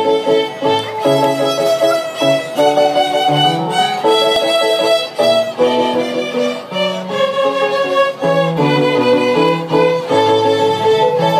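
A group of young violin students bowing a simple tune in unison, in short repeated notes with a steady rhythm, with a cello playing the lower notes beneath them.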